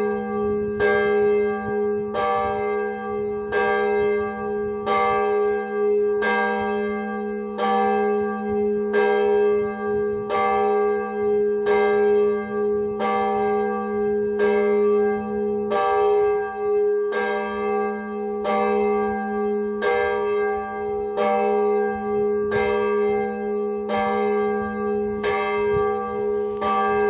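A single church bell tolling at an even, unhurried pace, struck about every second and a half on the same note. Each stroke rings on into the next, so a steady hum carries between strikes.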